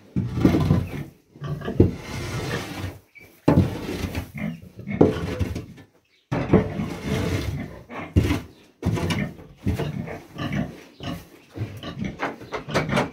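A heavily pregnant sow, close to farrowing, grunting repeatedly in short runs.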